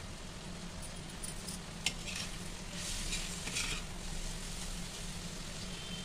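Sliced onions and spice masala sizzling as they fry in a steel kadai. A sharp metallic clink comes about two seconds in, then a steel ladle scrapes and stirs through the onions against the pan a few times in the middle.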